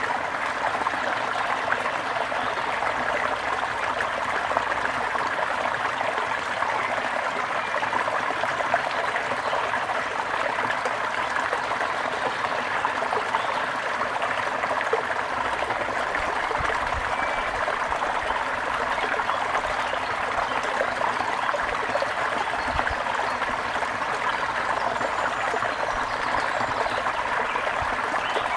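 Water trickling steadily over stones in a small stream.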